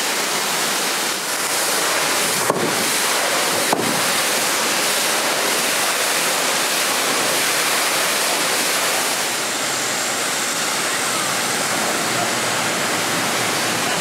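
Waterfall pouring down close by: a loud, steady rush of falling water, with two short clicks a few seconds in.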